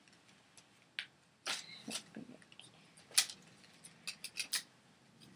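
Light rustling and a series of short clicks and taps as clothes and their packaging are handled, the sharpest click about three seconds in and a quick run of clicks soon after.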